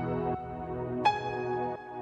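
Soft ambient background music of held keyboard notes, with a new note coming in about a second in.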